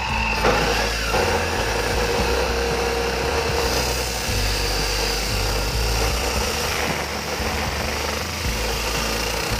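Abrasive chop saw running, its cutting disc grinding into the metal action of a homemade gun: a steady grinding noise with a held whine over it.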